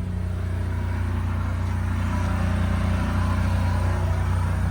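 Ford E-450 chassis' Triton V10 gas engine idling steadily, a low even hum.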